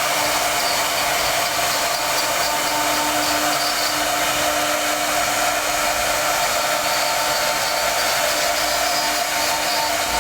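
High-speed CNC router running: a steady whine of tones over a constant hiss, unchanging throughout.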